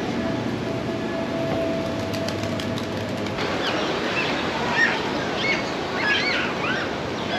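Steady outdoor background noise with a faint hum; from about three and a half seconds in, birds chirping in short rising and falling calls over it.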